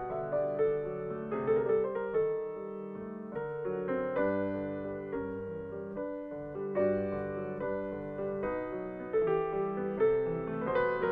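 Grand piano played solo: a classical piece of held notes and chords over a moving bass line, swelling and easing in loudness.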